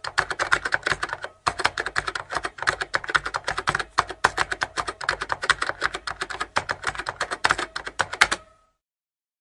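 Rapid keyboard typing, a dense run of quick clicks with a brief pause about a second and a half in, stopping abruptly near the end.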